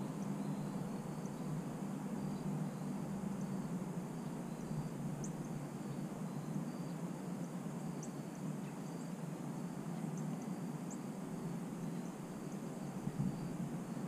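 Backyard ambience: a steady low rumble, with faint insect chirping and short, high bird chirps now and then.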